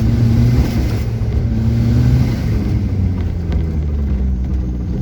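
Turbocharged Fiat Uno engine running under light throttle, heard from inside the car as a steady low drone whose pitch drifts slightly up and down.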